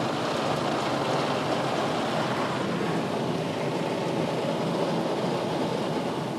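Automatic car wash brushes and water spray working over the car, heard from inside the cabin: a steady rushing wash of noise that eases slightly near the end.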